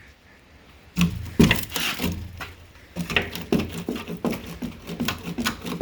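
Footsteps climbing the school bus's damaged stepwell: heavy thumps on the steps about a second in, then lighter knocks and scuffs of shoes on the treads.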